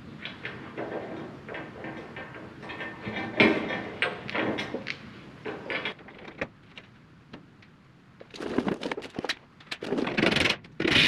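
Irregular metallic knocks, clatter and scraping as a steel skid pan is manoeuvred back into place under an articulated dump truck, with a longer, louder scraping stretch near the end.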